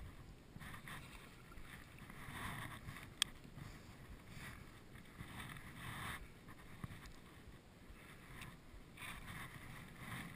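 Faint water and wind noise around a small boat, swelling and fading every second or two, with one sharp click about three seconds in.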